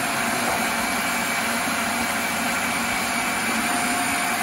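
Food processor motor running steadily at speed, its blade mixing thick cake batter while milk is added a little at a time to loosen it.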